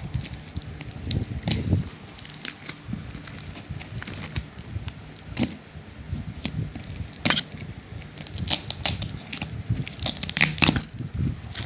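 Clear plastic wrapping film on a box being slit with a knife and pulled off, giving irregular crackling and tearing of the plastic that grows denser in the last few seconds.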